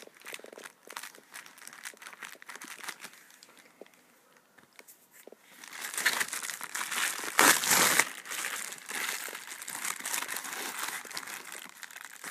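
Plastic bubble mailer crinkling as it is handled, faint and scattered at first, then much louder from about six seconds in as it is torn open, with the loudest rip at around seven and a half seconds, and crinkling continuing as the contents are pulled out.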